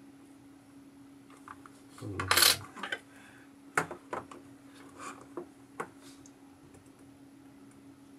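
Laptop keyboard and touchpad parts being handled: a short scrape about two seconds in, then a few light clicks and taps of hard plastic and metal, over a steady low hum.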